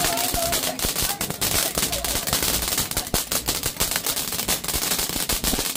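Ground fountain firework spraying sparks: a dense run of rapid sharp crackles over a steady hiss, which cuts off suddenly at the very end.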